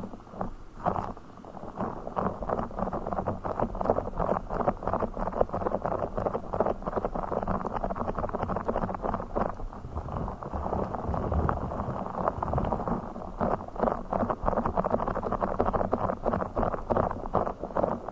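Close-miked ASMR trigger sounds from a blue fish object being handled: a dense, continuous run of soft, muffled clicks and taps.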